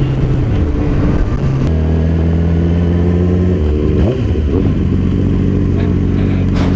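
Motorcycle engine running on the move. Its pitch falls over the first second or so, then holds steady, with a brief dip and rise about four seconds in.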